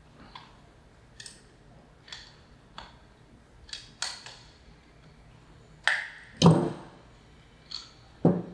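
Clicks and light knocks of a plastic-and-brass foam cannon being handled as its quick connect is taken off. Two heavier knocks come in the second half; the first of them is the loudest.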